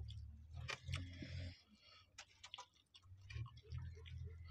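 Faint sounds of eating rice by hand: chewing and mouth smacks with small scattered clicks, over a steady low hum.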